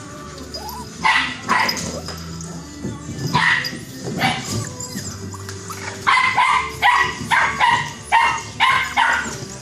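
Puppies barking in short, high yips: two barks about a second in, two more around three to four seconds, then a quick run of about seven barks in the last three seconds.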